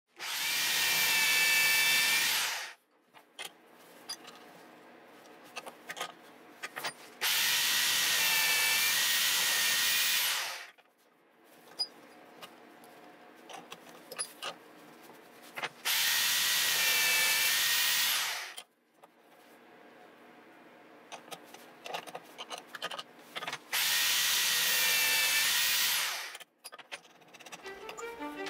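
An electric power tool runs in four bursts of a few seconds each, with a high whine. Between the bursts there are quiet clicks and knocks of workpiece handling.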